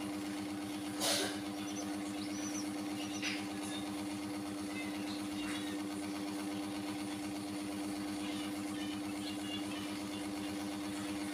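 A steady, low machine hum with one sharp click about a second in and a few faint, high chirps from chicks.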